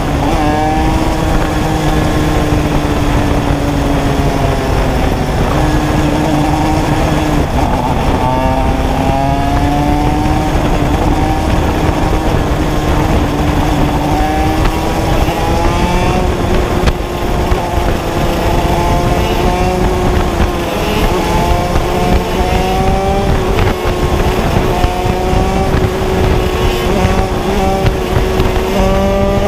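Shifter kart's two-stroke Honda engine running hard on track, its note climbing in pitch and then dropping again and again as it revs through the gears.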